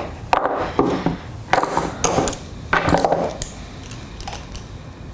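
Pliers and soft armature wire clicking and rattling as the wire is bent and twisted by hand into a loop: several sharp metallic clicks in the first three seconds, then softer handling noise.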